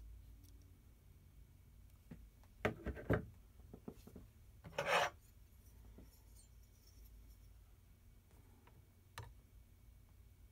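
Sparse small metallic clicks and taps as needle-nose pliers and parts are handled inside a printer mechanism, with one short scrape about five seconds in; otherwise quiet.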